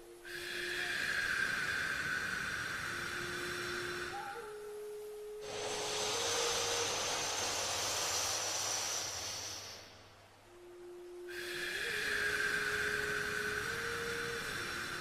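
Slow, paced breathing through the nose for alternate nostril breathing: a long exhale, a long inhale from about five seconds in, then another long exhale from about eleven seconds in, each a steady hiss with short pauses between. Under the breaths a soft sustained tone steps between a few pitches.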